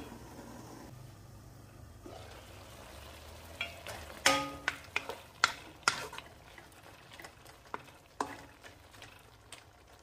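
Squid simmering in sauce in a wok, with a low, steady sizzle. About four seconds in, a metal pot lid clanks and rings briefly; then a wooden spoon stirs the squid, knocking against the pan a few times.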